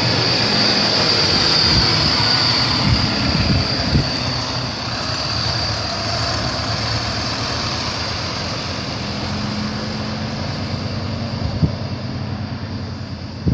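Three-axle bus driving away: engine running under way with a high steady whine over it, both slowly fading as it pulls off.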